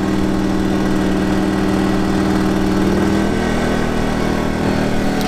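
CAT INV2000 inverter generator's engine running steadily on choke just after a cold start. About three seconds in its note shifts as the choke is moved toward the run position.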